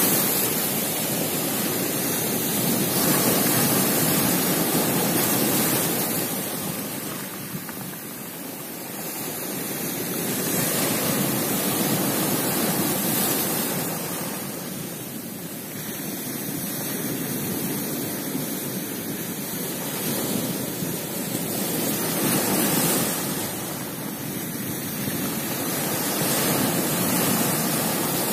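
Sea surf breaking and washing over rocks and a pebble shore. The rush swells and eases with each wave, every several seconds.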